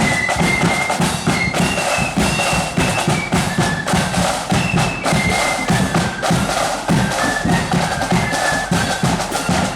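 A marching band playing a tune: a high melody line over heavy, continuous drumming with bass drum.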